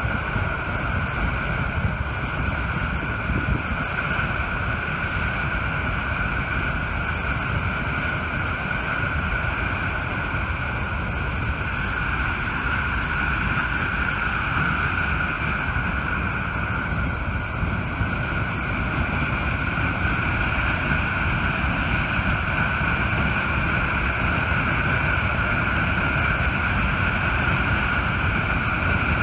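Steady, unbroken rush of the Button Rock Dam outlet's high-pressure jet of water shooting out and crashing into the river below.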